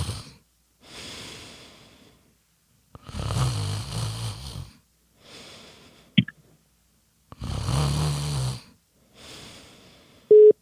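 A man fake snoring: two long drawn-in snores, each followed by a softer breath out, with a short click about six seconds in.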